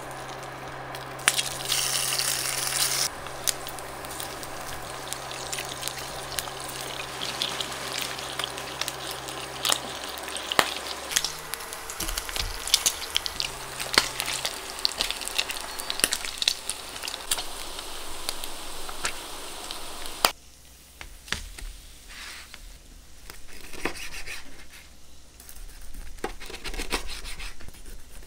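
Pork belly frying in hot oil in a pan: a steady sizzle full of sharp pops and crackles. About two-thirds through it cuts off, leaving scattered taps of a knife cutting the browned pork on a cutting board.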